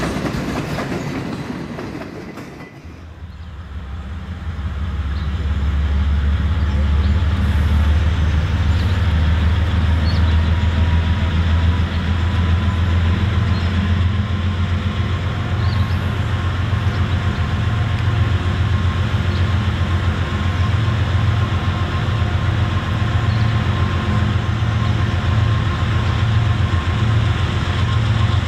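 Freight cars rolling past on the rails, fading away over the first few seconds. Then the steady low rumble of diesel freight locomotives approaching takes over for the rest.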